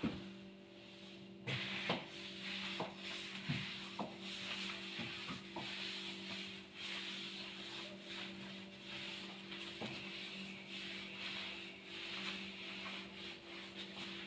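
A long-handled floor-cleaning tool rubbing back and forth over a wooden floor in repeated swishing strokes, with a few light knocks, over a steady low hum.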